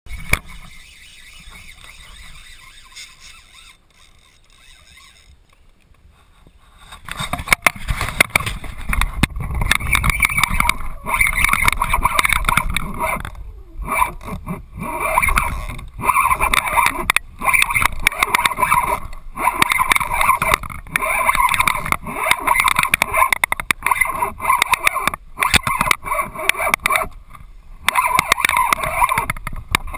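A Pflueger spinning reel whirring as it is cranked close to the microphone while a hooked gar is fought. The whirring comes in runs of a second or two with short breaks between them, over a low rumble of handling and wind. The first several seconds are quieter.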